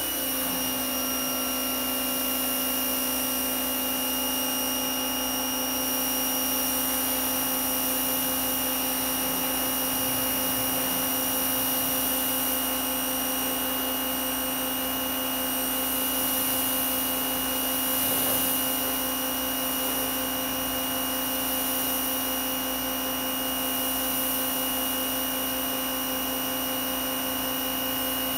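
CAT 1800 psi, 2.0 gpm pressure washer with a Cat 5 piston pump, running steadily under load while rinsing through a 40-degree nozzle. A constant humming whine with the hiss of the water spray.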